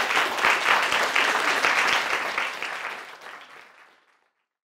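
Small audience applauding, a dense patter of many hand claps that fades away and stops about four seconds in.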